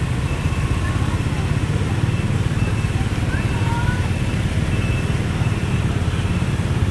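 Dense scooter and motorbike traffic on a wet city street: small engines running steadily in a low rumble, with the hiss of tyres on wet asphalt. A few faint short tones sound through it.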